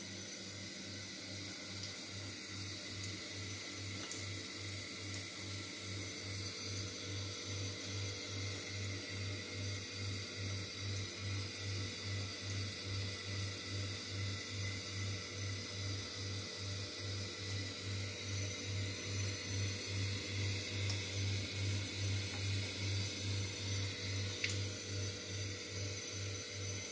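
Kitchen tap running a thin stream of water into a sink, heard as a steady hiss. A low hum pulses about twice a second beneath it and grows louder in the last third, and there is a single sharp click near the end.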